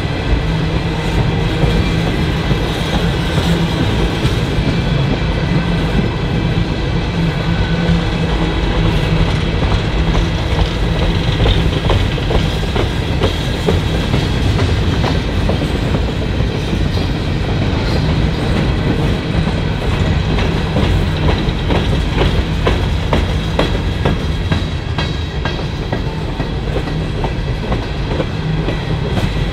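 Norfolk Southern coal hopper cars rolling past, steel wheels running on the rails with a steady low rumble and repeated clicking over the rail joints, and a thin high ringing from the wheels.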